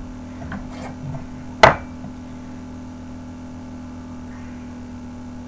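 A few light taps, then one sharp knock about one and a half seconds in, as a loaf of soap is set onto a stainless wire soap cutter and the cutter is handled on a tabletop.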